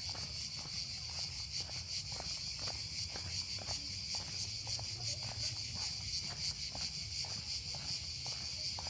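A steady, high, pulsing buzz of insects in the trees, with footsteps on the trail at about two steps a second.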